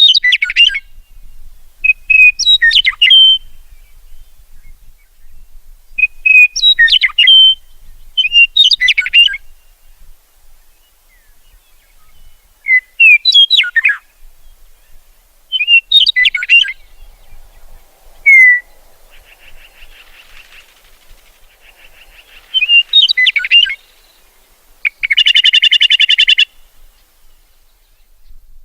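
Meadowlark singing: short whistled song phrases with quick slurred and gurgling notes, repeated every few seconds, and a harsh buzzy chatter call near the end.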